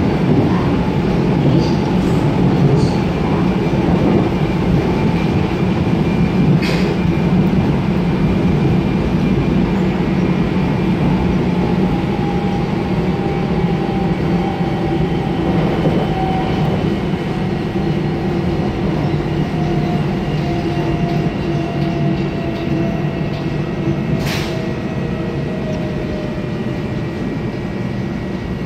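Seoul Line 1 electric commuter train heard from inside a passenger car: a steady rumble of wheels on the rails with a motor whine that falls slowly in pitch over the second half as the train slows. There are two sharp clicks, one early and one near the end.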